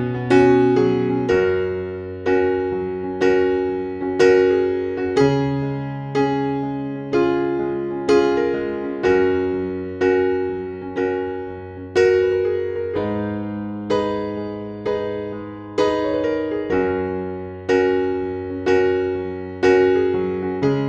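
Background piano music: a slow, gentle tune of struck notes that fade, with chords changing about once a second over held low notes.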